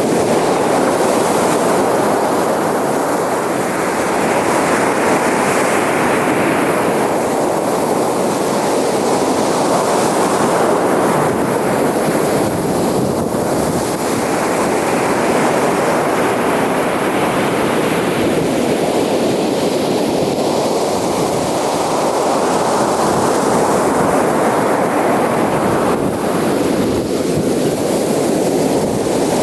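Ocean surf washing onto a beach, a continuous rushing wash that swells and eases every several seconds as waves break.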